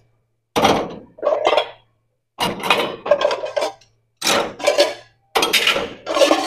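Washed ceramic dishes and metal utensils clinking and clattering as they are set into a dish rack, in about five short bursts with brief pauses between.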